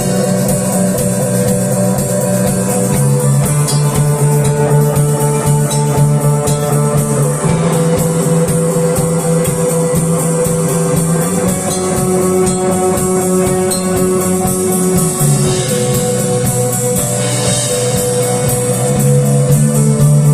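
Instrumental rock music: guitars with bass and a drum kit keeping a steady beat, no singing.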